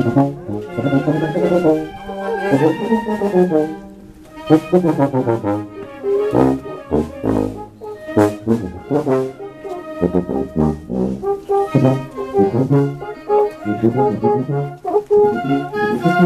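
Oaxacan brass band (banda de viento) playing on the move: sousaphones carry the bass line under trombones, trumpets and saxophones, with bass drum beats.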